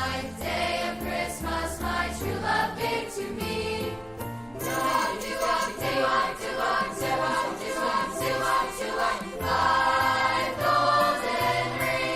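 Music: a choir singing over instrumental accompaniment, with a steady bass line underneath.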